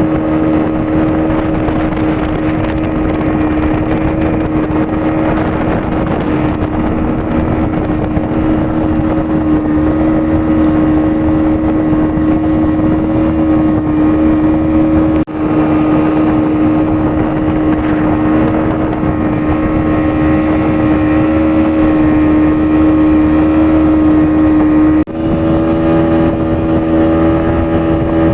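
An engine running at a steady, unchanging speed: a loud, constant hum with one strong low tone and its overtones. It drops out for a moment twice.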